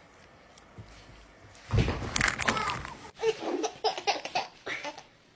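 A person laughing in short choppy bursts, starting about two seconds in after a quiet start.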